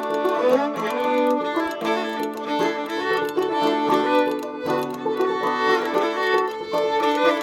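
Old-time string band playing: a fiddle carrying the melody over picked banjo, with spoons clicking out the rhythm.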